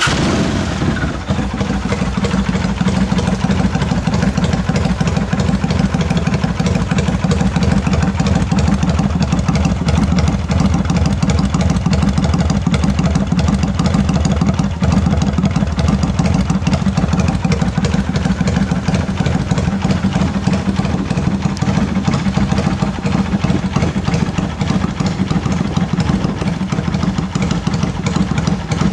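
Kawasaki Vulcan 400 V-twin engine idling steadily through a one-off custom silencer, settling into its idle in the first second or so just after being started.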